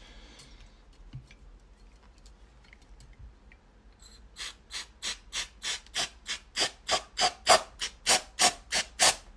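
Aerosol carburettor cleaner sprayed onto the oily turbine side of a turbocharger cartridge in about sixteen short hissing bursts, roughly three a second, starting about four seconds in. A few faint knocks from handling the parts come before it.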